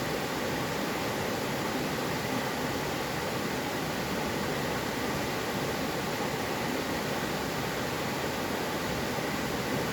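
Mountain valley stream flowing with a steady, even rush of water.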